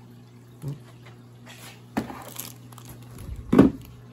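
Plastic media trays of a Fluval 307 canister filter being handled and lifted out, with bagged media crinkling and a few light plastic knocks. The loudest, a dull thump, comes near the end. A steady low hum runs underneath.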